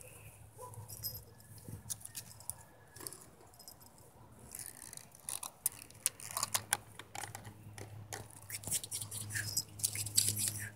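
Dry twigs and leaves rustling and crackling as kittens clamber through shrub branches close to the microphone. There are scattered sharp clicks and snaps at first, growing into a dense run of crackles in the second half.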